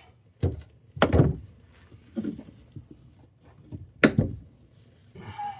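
A handful of dull thuds and clunks, the loudest about a second in and two close together about four seconds in, then a short rustling scrape near the end: tools and parts being handled.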